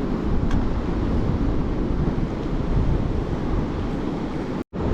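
Steady rush of a fast-flowing river with wind buffeting the microphone. The sound cuts out briefly near the end.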